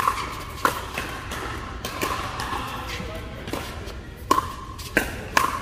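Pickleball paddles hitting a hollow plastic ball in a fast rally: sharp pops, about eight or nine in quick succession, each with a short ring, in a large indoor hall.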